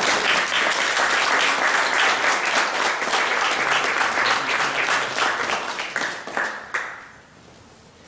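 Audience applauding, the clapping thinning out and dying away about seven seconds in.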